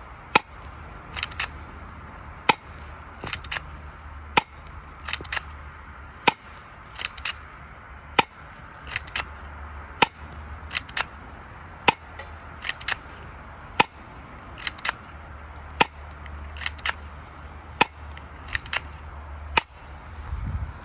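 Ukarms P2003 spring-powered airsoft pistol firing .25 g BBs, one sharp snap about every two seconds, about ten shots in all. Between shots comes a quieter quick double click as the slide is pulled back and released to cock the spring for the next shot.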